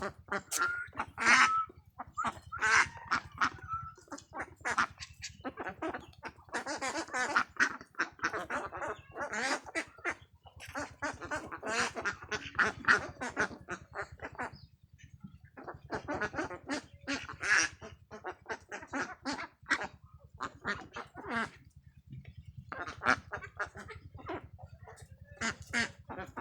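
A flock of farm ducks quacking, many short calls overlapping in bursts with brief lulls between them.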